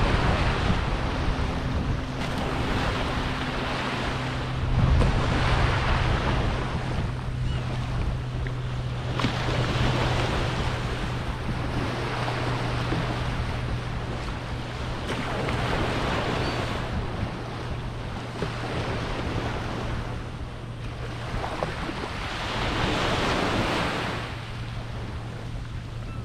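Surf washing in on a beach, swelling and fading every few seconds, with wind on the microphone. A steady low hum runs underneath from about two seconds in.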